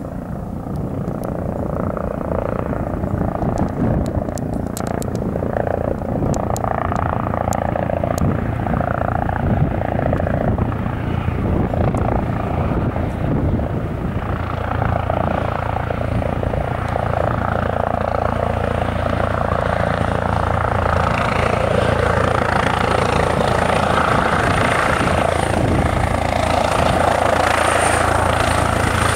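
Eurocopter EC 135 helicopter's rotor and twin turbine engines, growing slowly louder as it comes in to land. A high whine joins about halfway through and strengthens.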